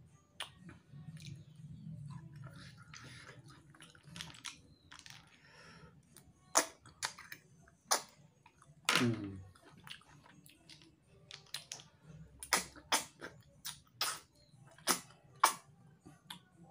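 Sharp sucking slurps as a person sucks the meat out of small rice-field snail shells, with chewing between them; the slurps come quickly, one after another, in the second half.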